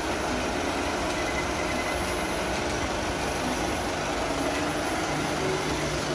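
35mm film projector and its platter system running a print, a steady mechanical running noise with no change in pace.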